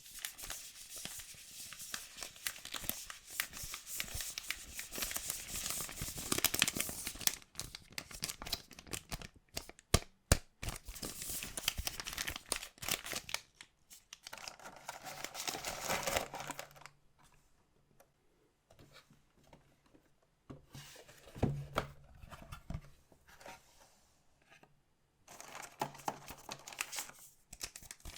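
Packaging being torn open and crinkled by hand: continuous tearing and rustling for the first half, then quieter handling with a few sharp clicks, and more crinkling near the end.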